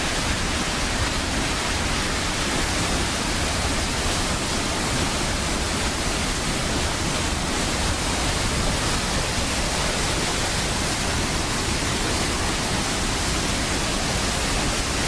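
Water pouring out of open dam floodgates: a loud, steady rush of falling and churning water with no change throughout.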